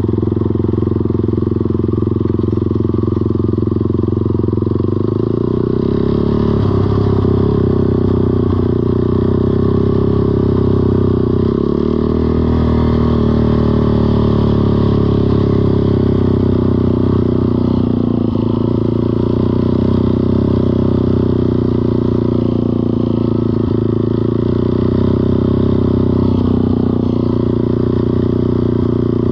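ATV engine running while riding along, its pitch stepping up about five seconds in and then wavering with the throttle.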